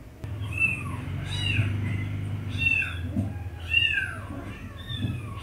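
A string of about five high, arching kitten meows, roughly one a second, played back through computer speakers to prank the kitten at the desk.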